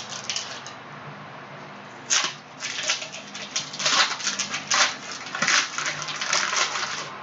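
Crinkling and tearing of plastic packaging as a retail box and packs of Prizm basketball trading cards are opened by hand. The crackles come in quick, irregular bursts, busiest from about two seconds in.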